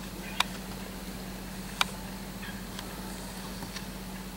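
Two sharp ticks about a second and a half apart, with a few fainter ticks after them, over a steady low hum.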